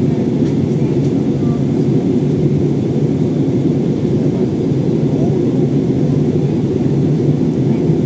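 Airliner cabin noise during descent: the deep, steady sound of the engines and airflow heard inside the passenger cabin, unchanging throughout.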